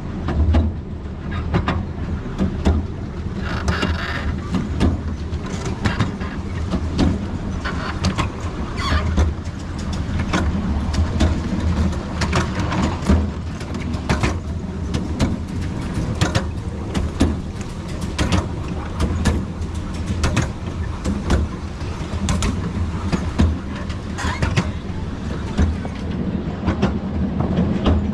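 Miniature railway train running along the track, heard from an open passenger carriage on board: a steady low rumble with frequent sharp clicks and clatters from the wheels on the rails.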